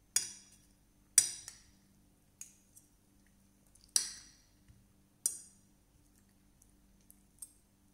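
Metal fork and spoon clinking and scraping against a plate while cutting chicken: four sharp clinks, each fading quickly, with a few lighter taps between them.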